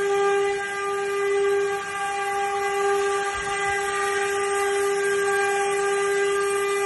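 Stone CNC router spindle running at speed, a steady high-pitched whine with overtones that holds one pitch throughout.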